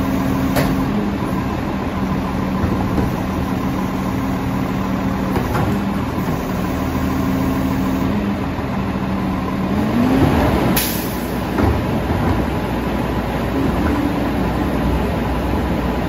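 Labrie split-body garbage truck idling while its cart tipper lifts and dumps a trash cart into the side hopper. The engine note rises briefly about ten seconds in, and a sharp bang follows.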